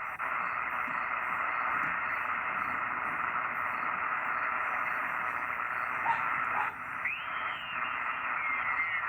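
HF ham radio receiver hissing with steady band noise through its speaker on a quiet 40-meter band. About seven seconds in, a pitched signal sweeps and slides downward, as when the dial is tuned across a station.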